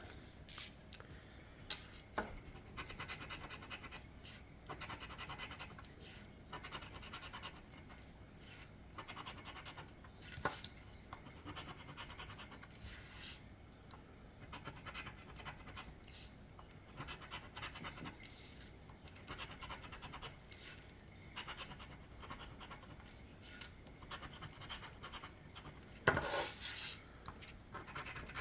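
Scratch-off lottery ticket being scratched: short, irregular scraping strokes across its coating, stopping and starting, with one sharper, louder scrape near the end.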